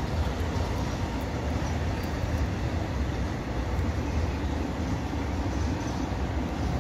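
Intermodal freight train's wagons, loaded with lorry trailers and containers, rolling past at a steady speed: a continuous rumble of wheels on rail.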